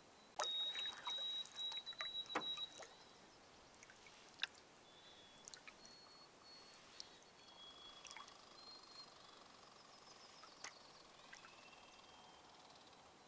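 Canoe paddle strokes: water splashing and dripping off the paddle blade, loudest in the first three seconds. Faint high bird whistles come and go over it.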